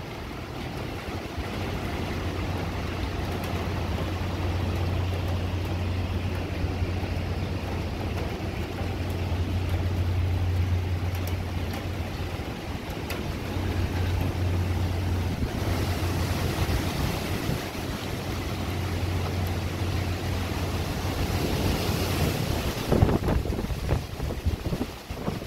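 Hurricane wind gusting through trees, buffeting the phone's microphone with a heavy rumble. A stronger hissing gust rises about two-thirds of the way through, and a few sharp knocks come near the end.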